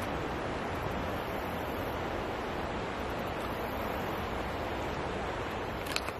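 Steady rush of a shallow river flowing over stones, with a short click near the end.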